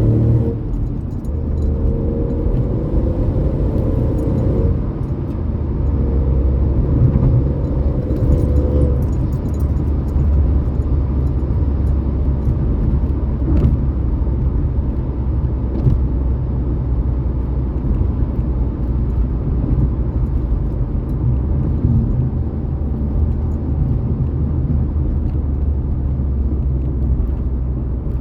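Ford Fiesta EcoBoost running, with a pitched engine drone in two stretches over the first nine seconds or so, then a steady low rumble.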